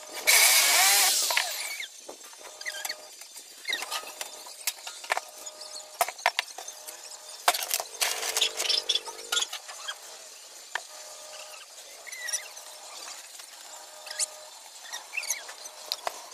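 Hand tools and aluminum window frame parts being worked on a concrete table: a loud scraping burst lasting about a second and a half just after it begins, another shorter rasp about eight seconds in, and scattered clicks and knocks of metal being handled.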